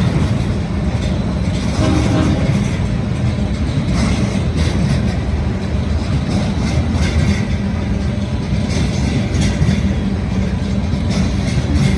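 Freight train rolling past: a loud, steady rumble with scattered sharp clicks and clanks from the wheels on the rails.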